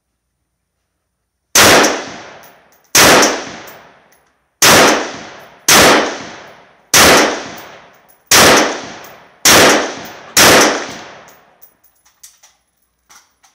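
Eight shots from a scoped rifle, fired about one to one and a half seconds apart, each followed by a long echoing tail under the covered firing line. A few small clicks follow after the last shot.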